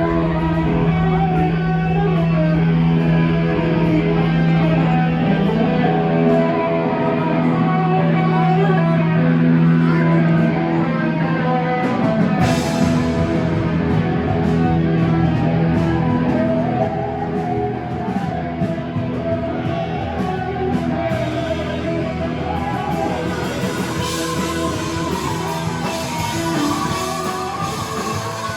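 Rock music with guitar; the sound changes about twelve seconds in.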